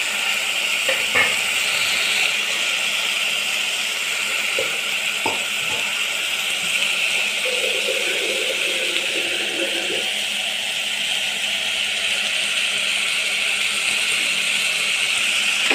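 Steady hiss of diced potatoes and green peas sautéing in a pressure cooker, with a couple of light knocks about one second in and again around five seconds.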